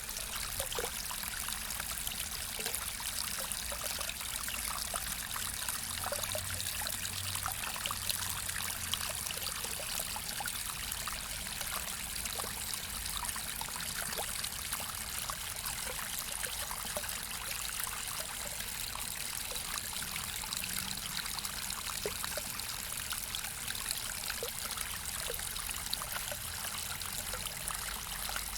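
Small waterfall: water splashing and trickling steadily, with scattered small plinks of drops.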